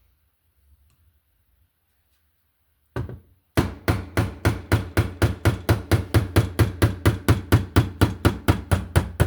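A hammer tapping metal on a drill bit used as a punch to drive out a stuck part of a corroded Raymarine Type 2 linear actuator: one tap about three seconds in, then fast, even taps, about five a second, through the rest.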